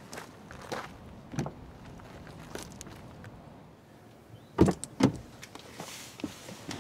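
Faint footsteps on gravel, then two sharp clunks a little past halfway as a car's rear door is opened, followed by the rustle of someone climbing onto the back seat.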